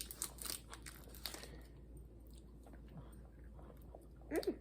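Crunchy biting and chewing of a Cadbury chocolate bar with caramel and cookie bits, a quick run of crisp crackles in the first second and a half, then quieter chewing. A short voiced "mm" near the end.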